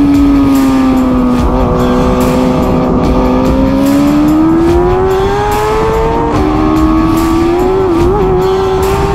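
Racing superbike engine heard from onboard at race pace. The revs ease down over the first couple of seconds, then climb under acceleration. A quick upshift about six seconds in drops the pitch, and the revs then climb and hold again.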